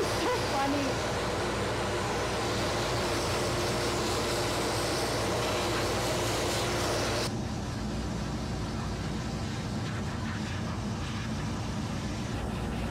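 Pet grooming dryer blowing a steady rush of air through its hose and nozzle. About seven seconds in, the hiss abruptly loses its bright top and turns duller and a little quieter.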